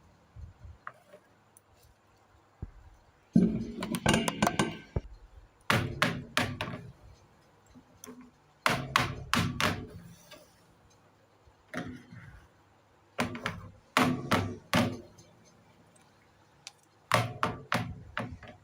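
Small plastic toy kitchen pieces clacking and knocking as they are handled and set down. The knocks come in about six short clusters of quick taps, with pauses between them.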